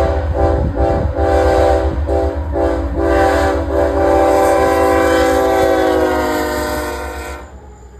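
Freight locomotive's multi-tone air horn sounding a string of short blasts about every half second, then one long blast that cuts off sharply near the end, over a low rumble from the approaching train.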